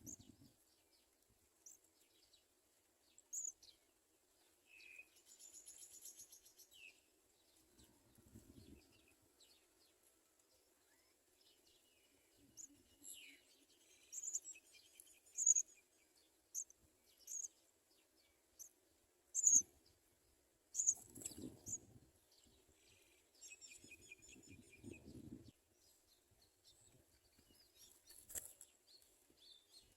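House sparrows chirping: short, sharp high chirps scattered throughout, coming in a quicker run in the middle, with a few low rustles or bumps.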